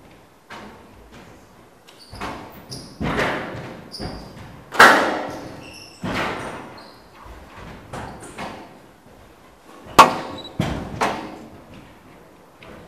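Squash rally: the ball cracking off rackets and the court walls about every one to two seconds, each hit echoing in the hall, the hardest two about five and ten seconds in. Short high squeaks of the players' shoes on the court floor come between the hits.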